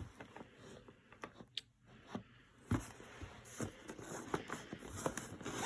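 Light handling noise from a box of mini figurines and its packaging: scattered small clicks and soft rustling, busier in the second half.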